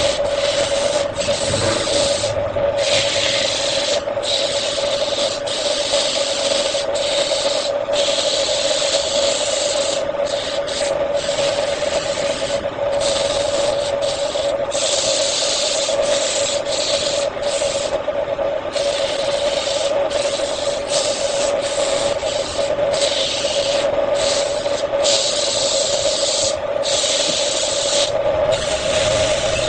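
Wood lathe running with a steady hum while something is pressed against the spinning wood, making a rubbing hiss. The hiss breaks off briefly every second or so as the contact lifts and returns.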